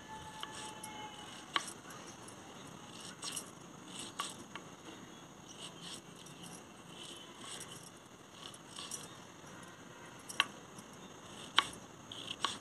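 Knife cutting a tomato on a wooden cutting board: scattered sharp taps of the blade on the wood, the loudest two near the end, over a faint steady background.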